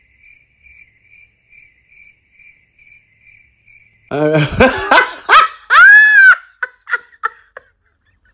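Faint cricket chirps, about three a second, the 'awkward silence' sound effect. About four seconds in, a loud, high-pitched voice with sweeping rises and falls in pitch cuts in and fades out a few seconds later.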